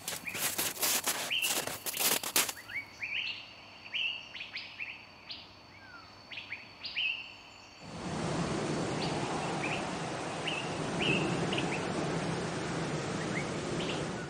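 Small birds chirping in short rising calls throughout. For the first two seconds or so they sound over a run of crunching steps. About eight seconds in, a steady rushing noise comes in beneath the chirps.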